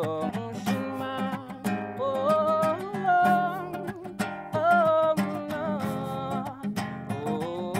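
A man singing slow held notes with vibrato to his own acoustic guitar, which he picks and strums underneath.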